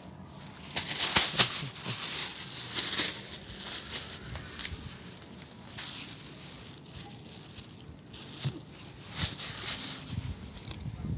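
Thin black plastic bag crinkling and rustling in irregular bursts as a hand puts a caught fish into it and handles it. The loudest crinkling is about a second in, with further bursts around three seconds and near the end.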